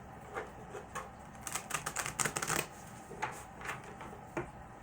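Tarot cards being handled and shuffled: scattered light clicks and flicks, with a quick run of them about a second and a half in.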